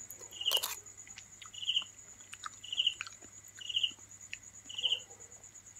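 Night crickets: a steady high trill with a short, lower buzzy chirp about once a second. There are a few faint ticks from eating, and one sharp click about half a second in.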